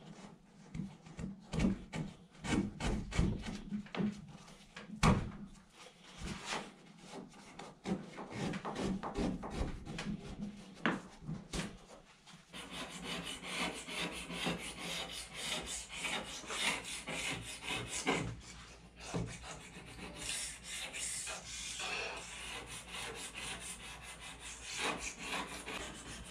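Razor-blade scraping along the edge of a Royalex canoe hull, taking off thick built-up gunk where the gunwales were removed. The first half is sharp separate scraping strokes and knocks. About halfway through it turns into a denser, continuous run of quick scraping strokes.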